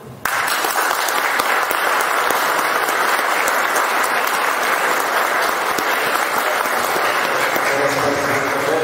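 Audience applauding, starting suddenly just after the opening and going on steadily; a voice starts over the applause near the end.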